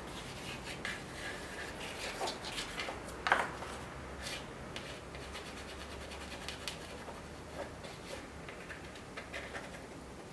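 Soft pastel scribbled and rubbed across a painted paper surface: a string of short, scratchy strokes, with one louder scrape about three seconds in.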